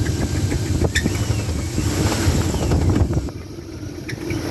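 2000 Oldsmobile Bravada's 4.3L Vortec V6 idling with a heavy knock from a worn rod bearing, which the owner blames on the engine having overheated and cooked its oil. The sound drops in loudness for about a second just after the three-second mark, then comes back.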